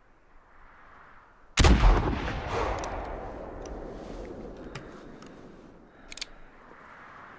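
A single buffalo rifle shot about a second and a half in, with a long rolling echo that fades over several seconds. A brief clicking comes near the end.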